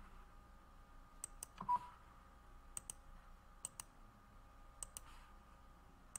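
Faint computer mouse clicks, four pairs of quick press-and-release clicks spread over a few seconds, while menu items are picked on screen. One short beep about two seconds in.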